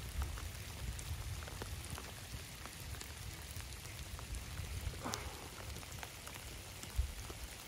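Steady rain falling on a farm dam and the dry grass around it, a dense patter of small drops over a low rumble. A single soft thump comes near the end.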